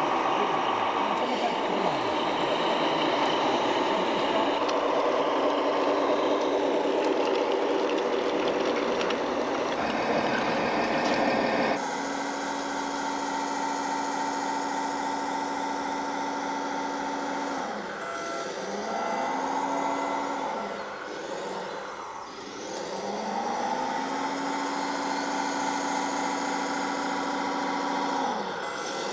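Running engine sound of scale RC model vehicles. First a busy mix of model trucks driving, then a steady diesel-style engine note from a model tractor and bulldozer working dirt, which drops in pitch and climbs back several times as they slow and pull again.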